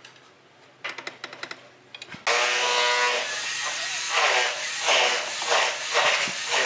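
A few light clicks and taps, as of a trowel working clay roof tiles. About two seconds in, a sudden loud wash of outdoor noise cuts in, with people's voices talking over it.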